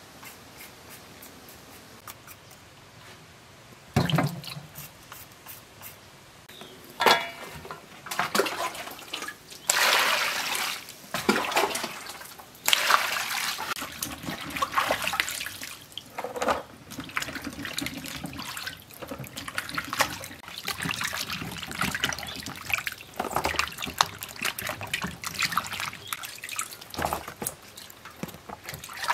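Vegetables being washed by hand in a metal basin of water: irregular splashing and sloshing with drips as the yard-long beans are rubbed and lifted. It is quiet for the first few seconds, apart from a few light ticks, and then the splashing starts with a sudden knock.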